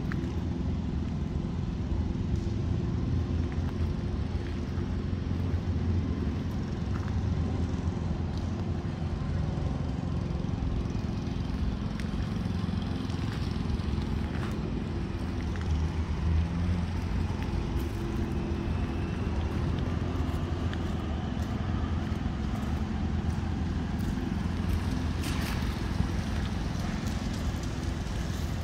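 Steady low outdoor rumble, with a faint rising tone partway through and a brief sharp sound near the end.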